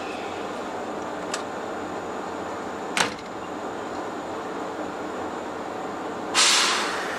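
A stopped electric train humming steadily at the platform. There are two sharp clicks, the second louder, then a sudden loud hiss of compressed air about six seconds in that starts to fade: air let out by the train's pneumatic brakes or door gear.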